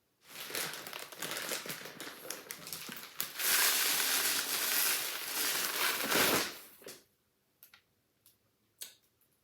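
Loose birdseed spilled from a torn bag, rattling and crinkling among the packaging in a cardboard shipping box as the contents are handled. It is a dense hiss of grains that grows louder about halfway through and stops about seven seconds in, followed by a few light clicks.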